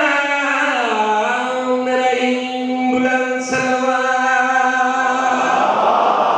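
A man chanting a devotional qasida through a microphone and PA: a sliding, ornamented line that settles on one long held note for about four seconds. Near the end the voice stops and a rush of crowd noise takes over.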